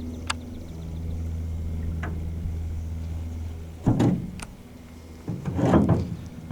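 A boat's motor runs steadily with a low hum, then dies away about four seconds in. A loud knock follows, with more irregular louder noise near the end.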